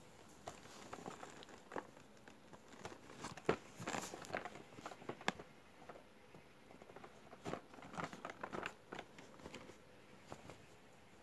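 A cardboard model-airliner box with a clear plastic window being picked up, turned over and set down: scattered crinkles, taps and rustles, coming in two busy stretches.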